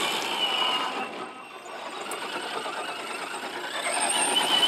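RC crawler truck's 3BRC Black Jacket 860kv brushless outrunner motor running on a 6S battery under full throttle, with a high whine over tyres spraying loose dirt and gravel. The sound fades as the truck races away, then grows louder again near the end.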